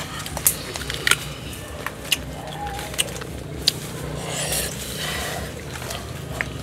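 Crisp crunches and clicks of unripe green mango being bitten into and cut up, about six sharp snaps at irregular intervals.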